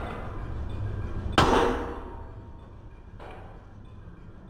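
Sledgehammer striking steel while a truck tire is worked onto its steel rim by hand with a tire lever. One loud ringing metallic clang about a second and a half in, then a lighter knock about three seconds in.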